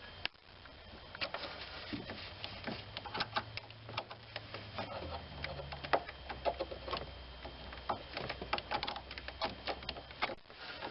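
Ratchet wrench clicking in short irregular runs as an 8 mm socket tightens the battery negative terminal bolt, with light metal taps and knocks between strokes.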